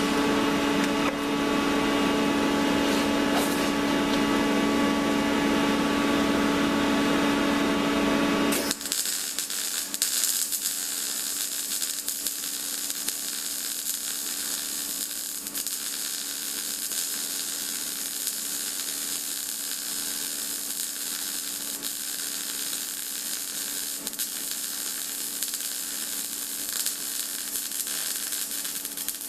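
A steady machine hum for the first nine seconds or so, cutting off abruptly, then the steady crackling sizzle of a MIG welder laying a bead.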